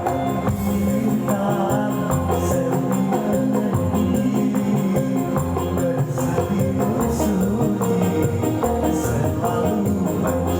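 Dangdut band music playing an instrumental passage with no lead vocal, over a steady moving bass line.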